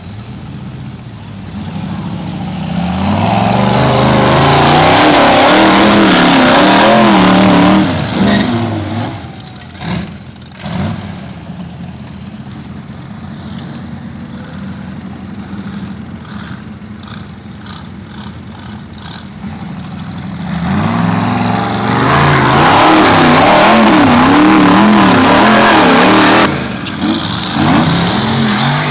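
Off-road buggy engine revving hard in two long full-throttle bursts, the first about three seconds in and the second about twenty seconds in, its pitch swinging up and down as the throttle works. Between the bursts the engine runs quieter.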